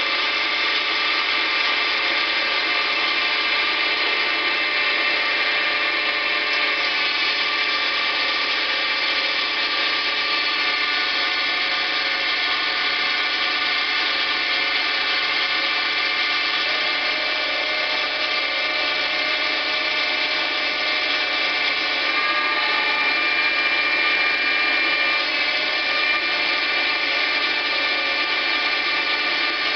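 Schaublin CNC lathe running steadily while turning a part: a constant mechanical whine of several steady tones over an even hiss, swelling slightly about three-quarters of the way through.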